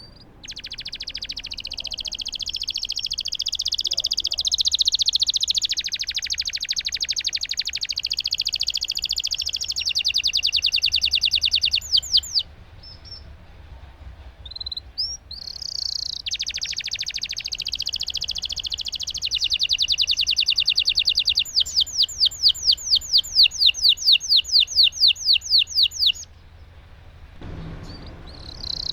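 Domestic canary singing long rolling trills: two long phrases of rapid, evenly repeated high notes, each running about ten seconds and changing pace partway through. Between them is a pause of a few seconds with a few short chirps, and a new phrase begins near the end.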